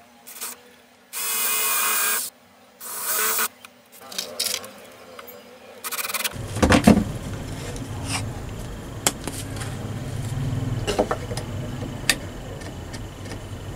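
Cordless drill driving screws into a wooden planter box: two runs of about a second each, then a few short bursts. After about six seconds a low steady rumble comes in, with scattered clicks and knocks as the wood and drill are handled.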